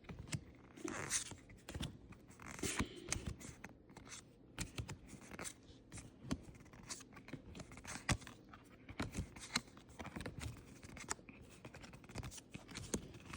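Pokémon trading cards being handled and flipped through: irregular soft slides, rustles and small clicks of card stock.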